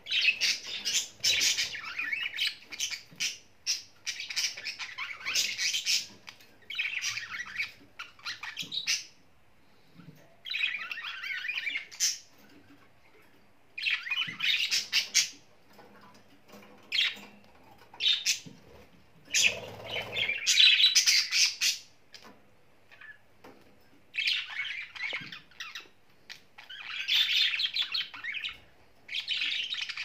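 Budgerigars chattering and squawking in repeated bursts with short pauses between, loudest about two-thirds of the way through.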